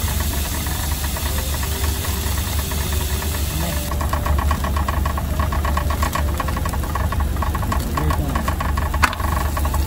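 A 10-tonne truck's diesel engine idling steadily with a low drone. From about four seconds in, a plastic bag of frozen shiitake mushrooms crinkles as it is handled and opened, with one sharp crackle near the end.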